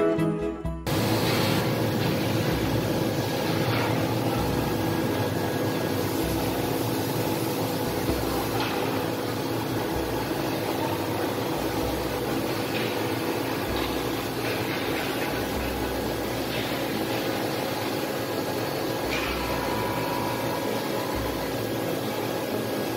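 Steady hum of running woodworking machinery, with a few faint clicks and knocks. Background music cuts off about a second in.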